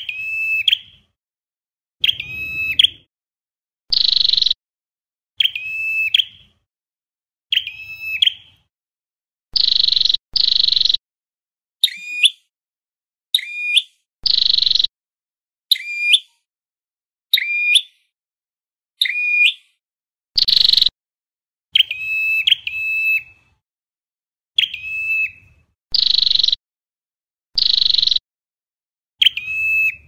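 Ashy tailorbird (Orthotomus ruficeps) calling: a loud, sharp, high note repeated roughly every one and a half to two seconds. Some notes dip and hook quickly in pitch; others are flatter and stronger.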